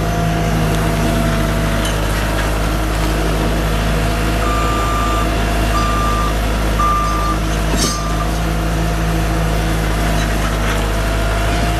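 Terex PT70 compact track loader's diesel engine running steadily, with its reverse alarm beeping four times in the middle as the machine backs up.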